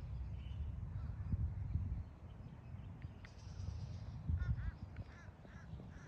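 A bird calling, a sound taken for a duck: a quick series of about five short calls a little over four seconds in, over a steady low rumble.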